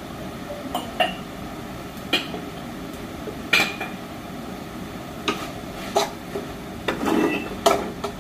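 Metal kitchen utensils clinking and knocking against cooking pots, with sharp irregular clinks every second or so, a few of them ringing briefly.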